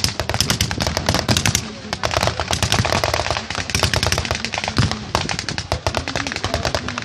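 Blank gunfire in a staged battle: rapid machine-gun bursts and rifle shots, densest in the first second or so, then carrying on in scattered bursts, with crowd voices underneath.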